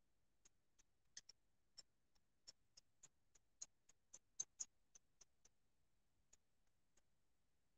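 Faint, irregular tapping of a paintbrush dabbing paint onto a barn quilt board, about twenty light taps that come thickest in the middle and thin out near the end.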